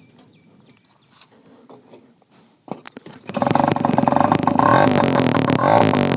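TVS 50 moped's small two-stroke engine starting about three seconds in, after a few clicks, then running loud with a fast crackle of exhaust pulses, the silencer's end cap removed.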